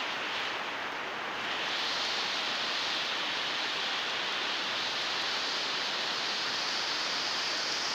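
Steady rain falling, an even hiss that gets a little louder about a second and a half in.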